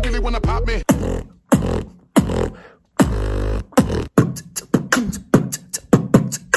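Human beatboxing, one layer at a time: a full mouth-made track with a held deep bass stops under a second in. Then come short, deep, pitched vocal bass notes with gaps between them, the bass layer. From about four seconds in, a quicker run of short, sharp mouth-made kick and snare hits follows, the beat layer.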